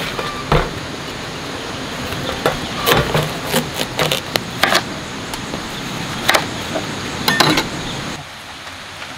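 Kitchen knife cutting a watermelon into slices on a stainless steel tray: a series of sharp cracks and knocks as the blade splits the melon and strikes the tray.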